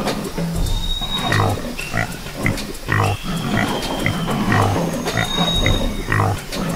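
Pig grunting in a run of short grunts, with a few thin high whistles behind.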